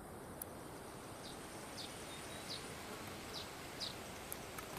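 Quiet swamp-forest ambience: a steady low hiss with a run of short, high chirps, roughly one every half second.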